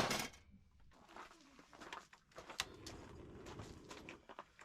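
A dove cooing low and steadily, with a few faint clicks.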